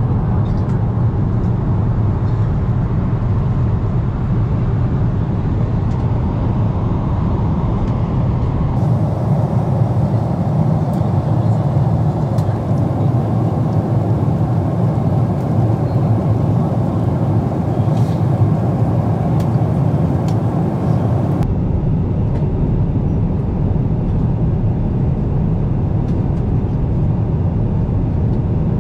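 Steady in-flight cabin noise of a Boeing 777-300ER at cruise: a deep, even rumble of engines and airflow. Between about 9 and 21 seconds the deep part thins and a brighter hiss takes over.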